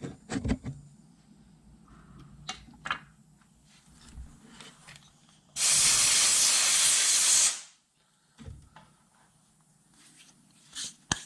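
A pressurised spray lets out a loud, steady hiss for about two seconds in the middle, cutting off sharply. Light clicks and taps of small tools on metal parts come before and after it.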